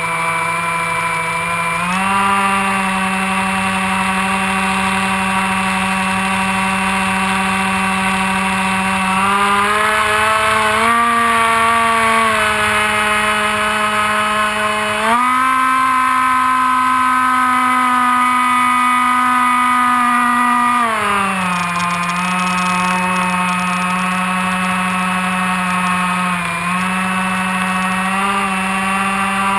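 Electric motor and propeller of an AXN Floater Jet RC plane, heard from a camera mounted on the plane: a loud, steady whine that steps up in pitch with the throttle about two, ten and fifteen seconds in, then drops back about twenty-one seconds in.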